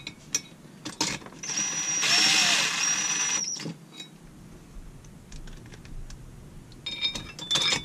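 A cordless drill/driver runs a screw into the chainsaw's cylinder for about two seconds, a steady motor whine, snugging the screw rather than giving it its final torque. A few light clicks of the tool and parts follow near the end.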